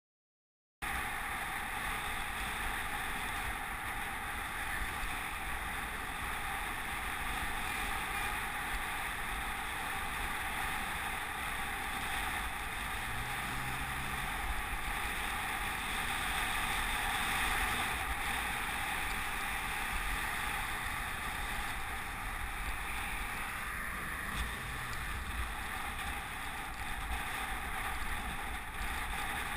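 Steady rush of wind and wet-road tyre noise from an action camera mounted on a bicycle riding in the rain, starting just under a second in. A passing pickup truck adds a brief low engine hum about halfway through.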